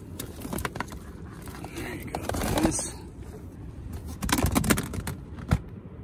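Plastic gear being handled and packed: a hard plastic bait box and its perforated tray knock and clatter, with a rustling slide about two seconds in. A burst of clattering follows about four seconds in, then a single knock near the end.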